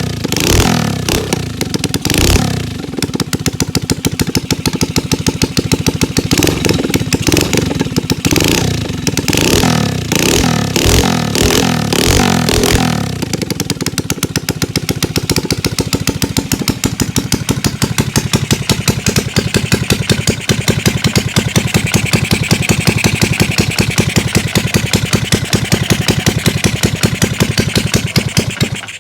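Small motorcycle engine running, its throttle blipped again and again for the first half, then running steadily and fast for the rest.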